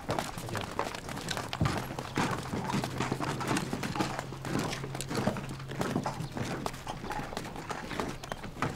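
Footsteps of a group of soldiers walking quickly in boots on packed dirt, many overlapping steps, with a low steady hum underneath from about two seconds in.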